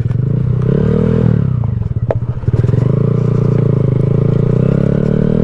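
2020 Honda Grom's single-cylinder four-stroke engine riding on gravel. It revs up in the first second and eases off, then pulls steadily with the revs climbing slowly. There is a sharp click about two seconds in.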